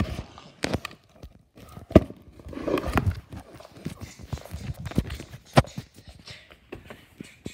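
Irregular knocks and bumps with rustling in between, a few of them sharp and loud, as things are handled and moved about.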